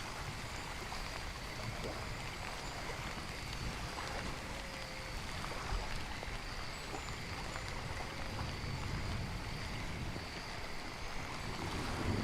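Steady rain and running-water nature ambience, an even rushing hiss with faint short chirps here and there.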